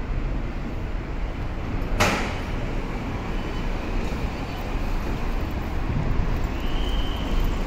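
A metro train stands at the platform with a low steady rumble. About two seconds in, its doors and the platform screen doors slide open with one sharp hiss. A faint short high tone sounds near the end.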